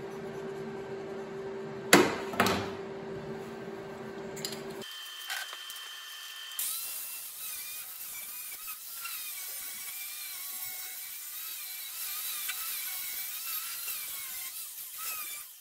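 Electric angle grinder grinding down the edge of a thick steel patch panel: a loud, rough grinding with a whine that wavers as the disc bites and eases. Before it, a steady hum with two sharp knocks about two seconds in.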